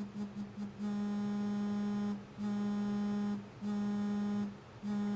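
Samsung Galaxy S3's vibration motor buzzing against a desk, playing its "Morning" vibration pattern: a quick string of short buzzes, then four long buzzes of about a second each with short gaps between.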